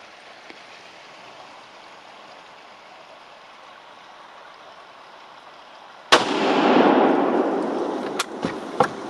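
A single shot from a 7mm WSM hunting rifle about six seconds in, preceded by faint steady outdoor hiss; the report rolls and echoes through the woods for about two seconds as it fades. A few sharp clicks follow near the end.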